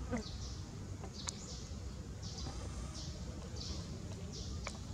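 Insects calling in a pulsing high buzz that repeats roughly every two-thirds of a second, over a steady low rumble. A brief falling squeak sounds right at the start, and two sharp clicks come about a second in and near the end.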